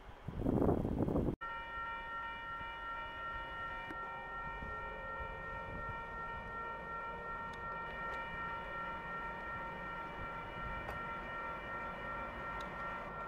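A passing train rumbles loudly and cuts off abruptly about a second and a half in. Then an electric locomotive hauling an Intercidades train gives a steady high-pitched whine of several held tones over a low hum.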